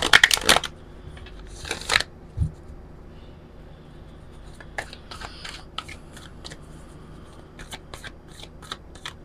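A deck of oracle cards being riffle-shuffled: a fast burst of flicking cards at the start and another about two seconds in, then scattered light clicks and slides of the cards being handled.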